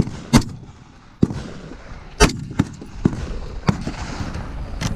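Rifle gunshots on a shooting range: about half a dozen sharp shots at irregular intervals and of uneven loudness, the loudest a little past two seconds in.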